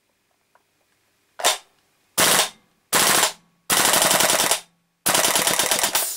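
WE G39C gas blowback airsoft rifle firing full auto: five bursts of rapid shots, the first very short and the later ones longer, up to about a second.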